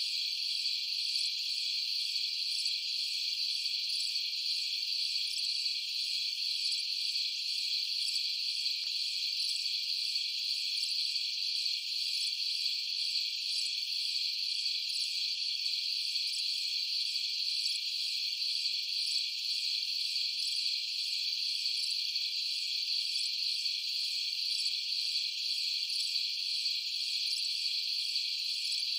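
A steady, unbroken chorus of insects: a high, shrill chirring, even in level.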